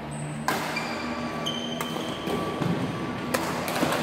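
Badminton rackets striking the shuttlecock in a rally, four sharp cracks about a second or more apart, echoing in a large hall. Brief high squeaks of sneakers on the wooden court come between the hits.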